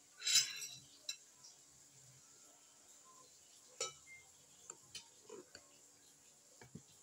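A plastic bag crinkles briefly as a mound of rice is handled, then scattered light clicks and taps from eating at the table.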